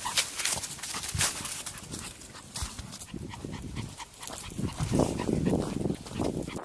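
Small Maltese dog vocalising, with short crackling sounds in the first few seconds.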